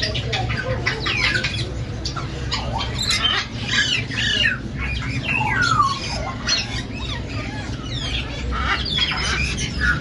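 Parrots squawking, many short rising and falling calls in quick succession that overlap one another.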